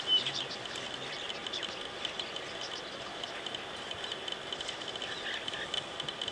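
Insects buzzing in a steady high drone, with many short bird chirps over it.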